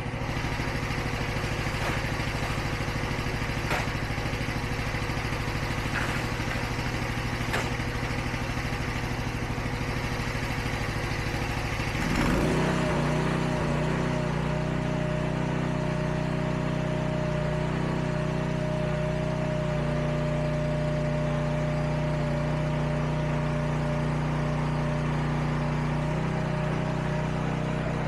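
Huayee SHY360 mini skid steer's engine running steadily; about twelve seconds in it speeds up and settles into a higher, steady drone as the loader arms lift a 600-pound load of rock bags, enough to tip the machine forward.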